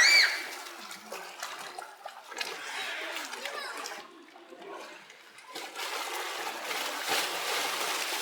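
Water splashing and sloshing as bear cubs jump and play in a pool, in two spells with a quieter gap in the middle. A brief high squeal right at the start.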